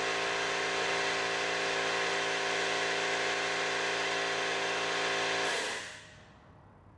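A motor-driven machine runs steadily with a strong hiss. About five and a half seconds in it is switched off and winds down quickly.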